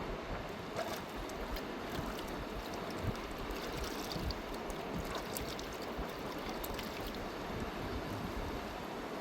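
Fast-flowing river rushing steadily, a continuous roar of water, with a few faint light clicks over it.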